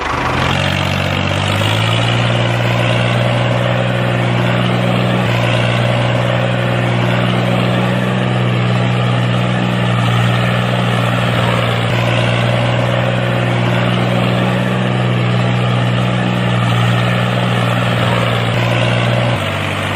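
Tractor engine running steadily, a low even drone whose note shifts slightly about two seconds in and again near the end.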